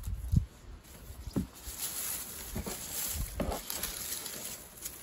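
Dried onion stalks and leaves rustling as harvested onions are handled, with a few soft knocks and the snip of garden shears trimming the tops off.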